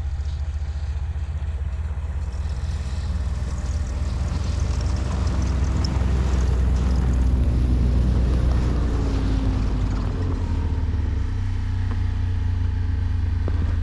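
A motor engine running steadily with a low drone.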